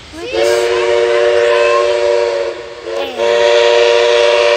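Steam locomotive's chime whistle sounding two long blasts, a chord of several notes, each sliding up into the chord as it opens. The second blast begins about three seconds in, after a brief falling note in the gap.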